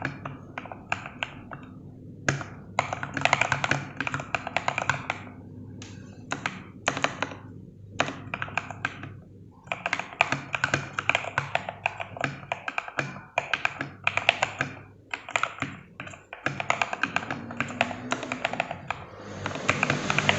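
Typing on a Royal Kludge RK68 Plus mechanical keyboard fitted with lubed Gateron Milky Yellow linear switches, foam and cotton damping and XDA PBT keycaps, with a thocky sound. The typing comes in quick runs of keystrokes broken by brief pauses.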